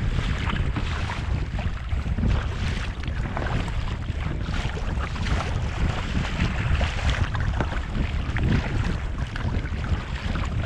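Wind buffeting the microphone in a heavy, uneven rumble, with water splashing and lapping around a kayak.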